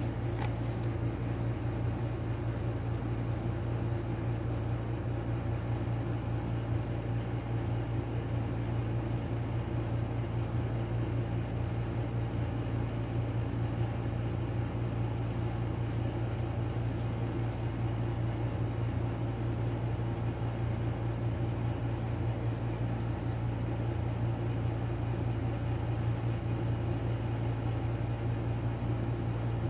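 A steady low machine hum with no change in pitch or level.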